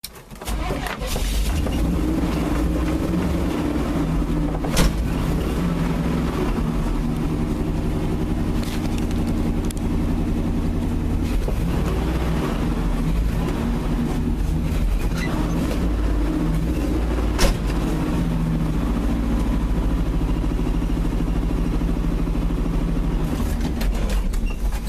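Pickup truck engine running steadily hard, its pitch shifting around the middle, then dying away near the end; the owner says the engine has blown a head gasket and now has a rod knock. Two sharp single clicks stand out, one about five seconds in and another past the middle.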